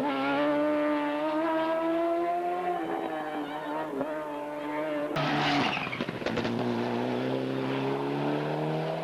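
Racing car engine at high revs under hard acceleration, its pitch climbing. About five seconds in there is a sudden harsh break, and then an engine note climbs again.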